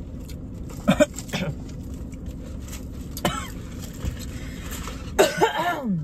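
A woman coughing in short bursts, about a second in and again around three seconds, then breaking into a short burst of laughter near the end.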